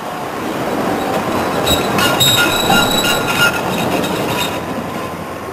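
A train passing close by: its rumble swells to a peak in the middle and fades toward the end, with a high wheel squeal from about two seconds in that lasts a second and a half.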